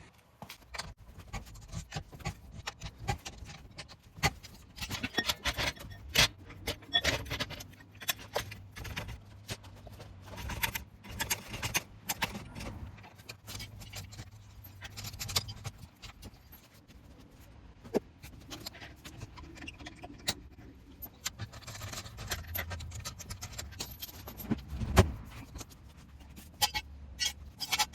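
Irregular metallic clinks and clatter of hand tools being picked up and used on the car, with one louder knock near the end.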